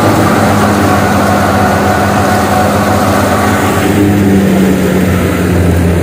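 Tractor-driven wheat thresher running steadily: the tractor engine's low hum under load and the threshing drum whirring as wheat stalks are fed in. About two-thirds of the way through the higher hiss of the threshing drops away while the steady low hum goes on.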